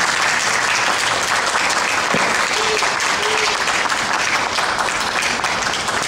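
Audience applauding.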